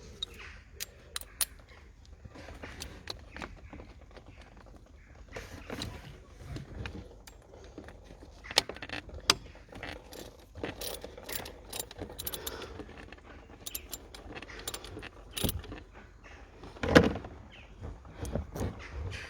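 Metal hand tools clicking and knocking against metal as a bolt on the thermostat housing is worked loose, with scattered sharp clinks and one louder knock near the end.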